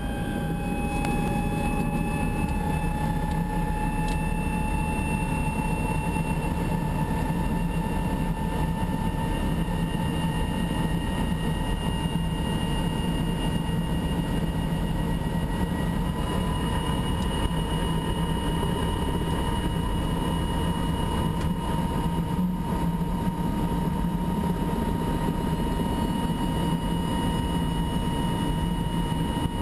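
An engine running steadily, with a low rumble and a whine whose pitch creeps slowly upward.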